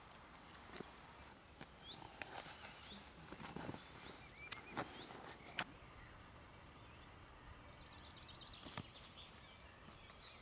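Faint outdoor ambience with scattered short bird chirps and a brief rapid trill, punctuated by a few soft clicks and taps.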